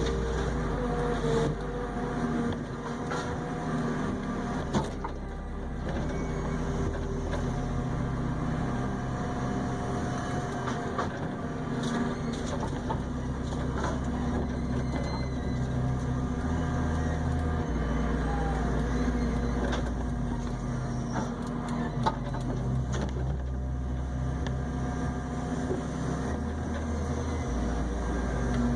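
Heavy machinery's diesel engine running steadily under load, with a few sharp knocks and clatters.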